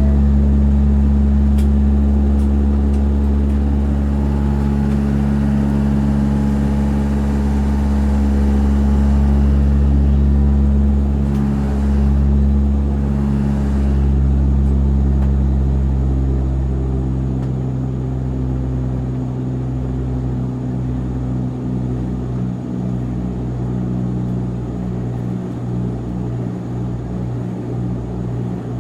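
Light plane's engine and propeller running with a steady, loud drone. About two thirds of the way through it eases slightly quieter and the low end becomes a throbbing pulse.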